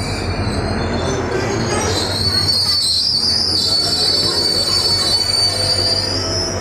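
Indian Railways passenger train coaches rolling slowly past, steel wheels squealing on the rails. A high, steady squeal sets in about a second and a half in, rising a little and holding until near the end, over the low rumble of the coaches.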